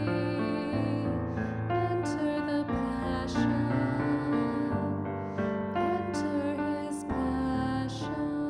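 Slow instrumental piano music, held chords changing every second or two.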